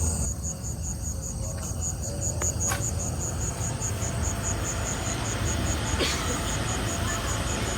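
An insect chirping in a fast, even train of high pulses, over a steady low rumble.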